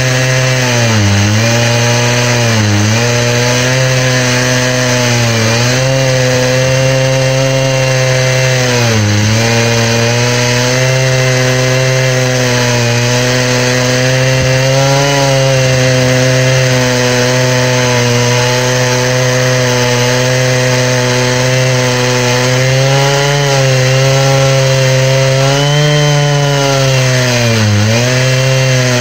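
Stihl 660 two-stroke chainsaw with an Oregon ripping chain on a 36-inch bar, mounted in a Granberg chainsaw mill, running at full throttle while ripping a green hickory log. The engine note holds high and steady but dips and recovers several times as the hardwood loads the saw, most deeply about a second in, around nine seconds in and near the end.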